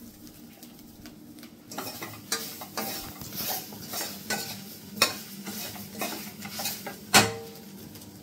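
A steel spoon stirring and scraping grated coconut and whole spices as they dry-roast in a stainless steel pot, with a faint sizzle. Short scrapes and clicks come once the stirring picks up, with sharp knocks about five and seven seconds in, the second the loudest.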